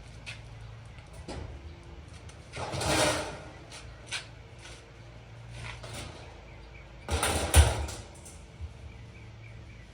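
Clicks, knocks and scraping from working on the sheet-metal panels of a 1940s Universal stove, with two louder scraping rattles, one about three seconds in and one about seven and a half seconds in.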